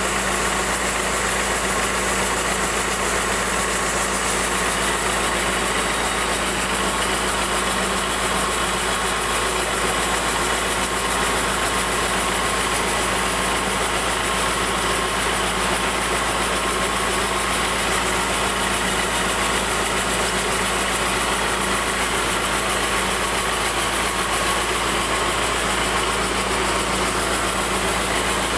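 Band sawmill running steadily as its blade rips lengthwise through a teak board, an even machine drone with no pauses.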